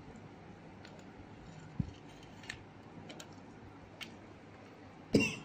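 Quiet handling of a whole fish being rubbed with turmeric and salt in a steel plate, with a few light clicks and taps against the plate. A brief, much louder sound comes near the end.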